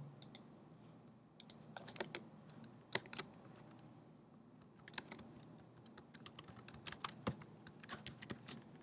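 Faint typing on a computer keyboard: irregular short runs of keystroke clicks.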